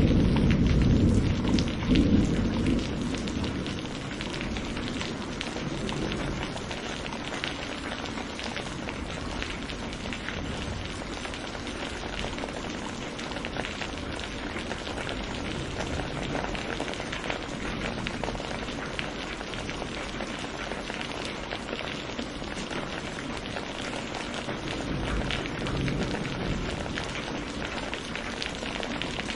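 Steady rain falling with a patter of drops, as a roll of thunder dies away over the first few seconds.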